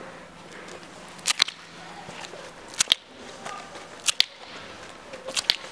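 Slow footsteps of hard-soled shoes on pavement: four steps, each a sharp double click of heel then sole, about one every second and a half, over a faint steady hiss.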